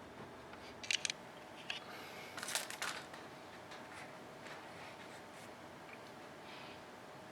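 Light clicks and taps of small hard parts being handled: a couple of sharp clicks about a second in and a short rattling cluster about two and a half seconds in, with fainter ticks after.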